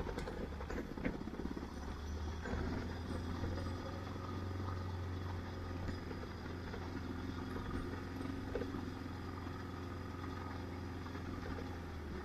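Adventure motorcycle engine running steadily while riding a muddy gravel track, with a few knocks and rattles from the bike in the first second or two.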